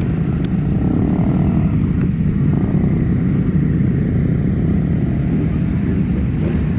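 Motorcycle under way at a steady pace: engine and rushing air make a loud, even low rumble.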